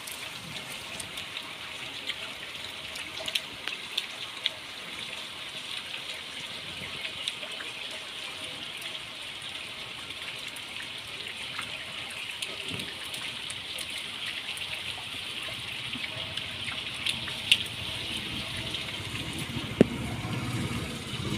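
Steady rain falling, an even hiss dotted with small drop ticks, with a couple of sharper knocks near the end.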